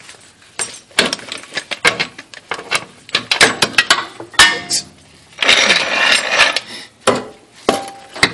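Impact wrench with a 14 mm socket hammering in short bursts, taking the bolts off a sway bar support bar, among clanks of sockets and metal parts. The longest run of the wrench comes a little past the middle.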